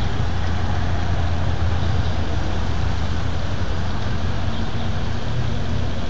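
Steady rumble of road traffic with a low engine hum underneath.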